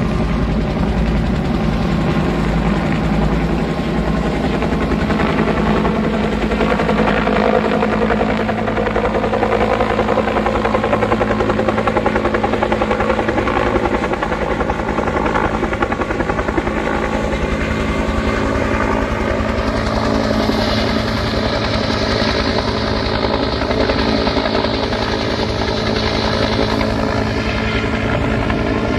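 Bell UH-1 Huey-type helicopter flying low overhead, its two-bladed main rotor beating steadily over the hum of its turbine engine, at a steady level throughout.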